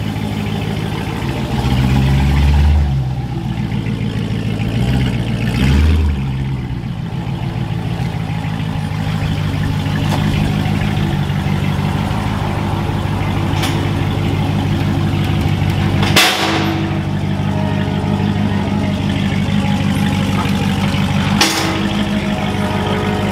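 A 2014 Dodge Challenger R/T's 5.7 HEMI V8 running at idle on its stock exhaust, with a steady low hum; the engine note swells briefly twice in the first few seconds. Two sharp knocks stand out later on.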